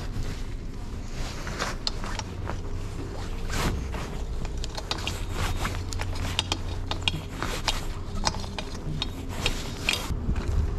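Coiled cable bike lock with a combination head being handled: scattered sharp clicks and rattles of the lock and its cable, over a steady low hum.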